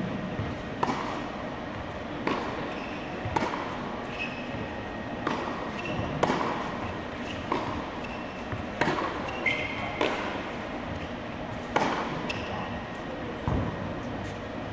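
Tennis ball struck back and forth with racquets in a baseline practice rally: sharp hits and bounces about every second or so, echoing in a large indoor hall.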